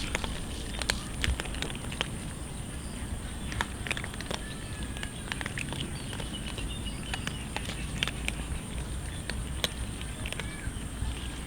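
Cats eating, with irregular sharp crunches and clicks of chewing. Under them runs a steady background noise with a constant high-pitched whine.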